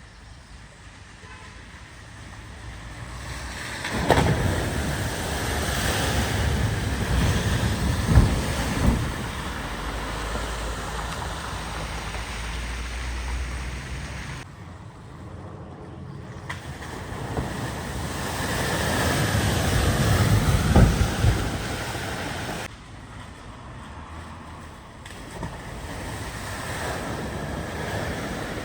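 Vehicles driving through floodwater: a rushing splash of water thrown up by the wheels over a low engine rumble, with a few sharp thuds. The sound changes abruptly twice.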